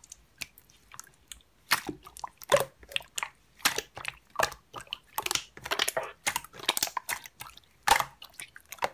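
Slime being squeezed and pressed by hand, making irregular sticky clicks and crackles, several a second.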